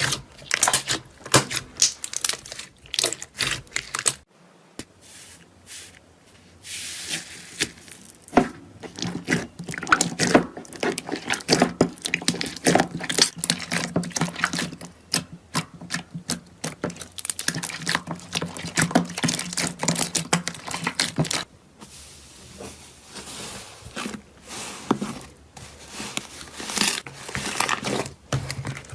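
Slime being handled, with irregular wet squishing, clicking and crackling.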